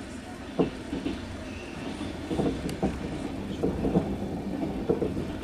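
Passenger train running, heard from inside the carriage: a steady low rumble with the clickety-clack of wheels knocking over rail joints, the knocks coming thicker from about two seconds in.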